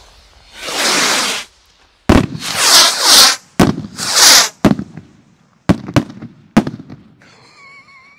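A volley of small Mars stick rockets: a rocket's hissing whoosh, then from about two seconds in a rapid string of sharp bangs as they burst overhead, thinning out to a few scattered bangs. Really loud for their size.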